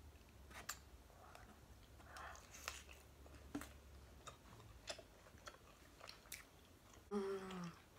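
A person chewing a mouthful of mac and cheese topped with hot Cheetos, mouth closed: faint chewing with small, scattered clicks and smacks.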